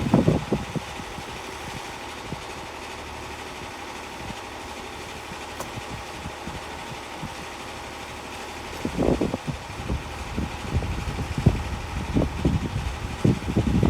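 Portable sawmill engine idling steadily, with irregular knocks and thumps starting about nine seconds in.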